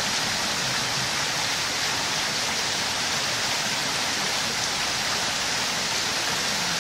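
A steady, even hiss of background noise, strongest in the upper range and unchanging throughout, with no distinct event standing out.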